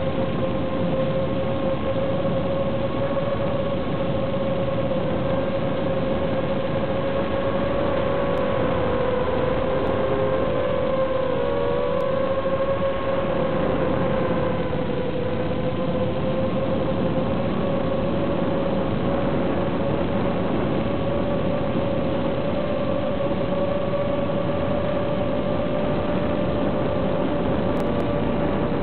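Micro FPV quadcopter's brushless motors whining steadily in flight over a hiss. The sound comes from the onboard microphone and is carried over the analog video transmitter's audio, so everything above the midrange is cut off. The pitch wavers briefly about ten seconds in and splits into two close tones near the end.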